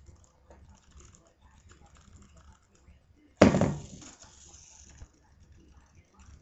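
A small homemade balancing robot, a single motor on two wheels under a four-battery pack, ticking and rattling faintly as it teeters. About three seconds in it tips over and hits the wooden floor with a loud clatter that rattles away over the next second or so.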